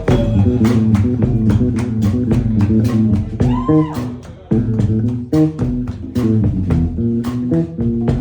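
Band music: guitar and bass guitar playing over a steady drum beat, with a sliding note arching up and down about halfway through.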